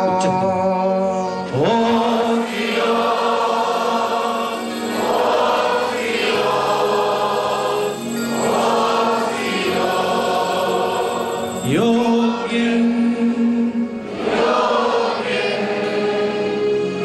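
Choir chanting a slow liturgical hymn of the consecration rite, in sung phrases of a few seconds each with long held notes.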